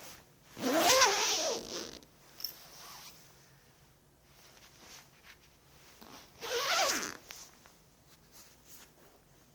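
A zipper pulled twice: a zip of over a second starting about half a second in, and a shorter, quicker zip about six seconds in.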